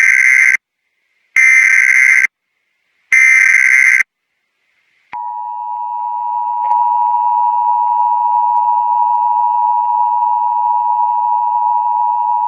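Emergency Alert System broadcast tones: three short bursts of screechy SAME digital header data, about a second each, then, about five seconds in, the EAS two-tone attention signal, a steady harsh chord of two tones that swells slightly at first and then holds.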